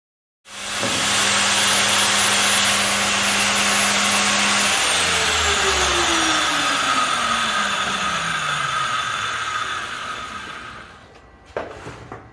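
Circular saw, mounted upside down as a makeshift table saw, running and cutting a resin-and-wood handle block into a scale. It is switched off about five seconds in, and its whine falls steadily in pitch as the blade coasts to a stop over the next several seconds. A few knocks come near the end.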